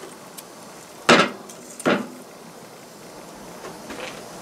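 Two sharp knocks on a tin can, about a second apart, as a coil of wire is hooked onto it; the first is the louder.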